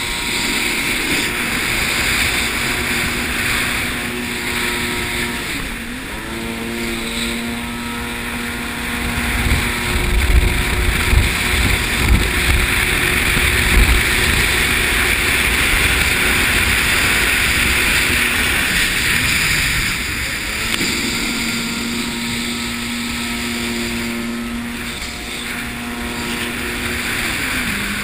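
Jet ski engine running at speed, with wind on the head-mounted microphone. The engine pitch drops and climbs back about six seconds in and again near the end, and a heavy low rumble of buffeting fills a few seconds in the middle.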